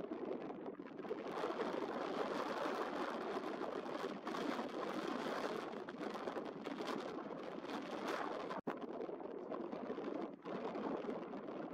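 Water rushing and churning in the bow wave and wash of a harbour tug under way at speed, a steady noisy rush that cuts out for an instant about eight and a half seconds in.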